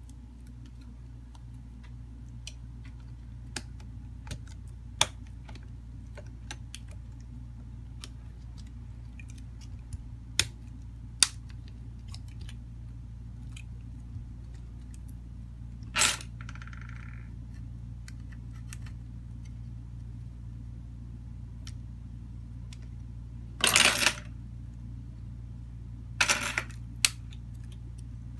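Sharp plastic clicks and snaps, scattered and uneven, from the housing clips of a Samsung Galaxy A32 (SM-A325F) snapping into place as the frame and back cover are pressed together by hand around the edges. A few louder bursts of snapping come about halfway through and near the end, over a steady low hum.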